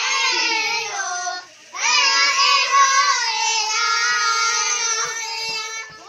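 A group of young children singing together in high voices, holding long notes, with a brief pause for breath about a second and a half in.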